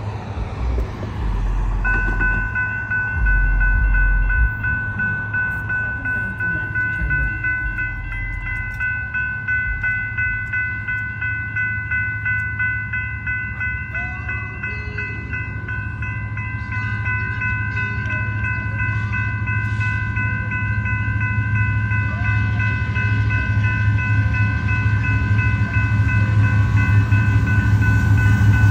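Railroad crossing bell ringing rapidly and steadily, starting about two seconds in. Underneath, the low rumble of an approaching diesel freight train led by an EMD SD70ACe locomotive grows louder toward the end.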